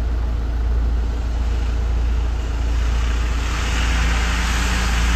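Off-road 4x4 engine running at low speed, a deep steady rumble; about three and a half seconds in a brighter hiss and a new steady engine note join it.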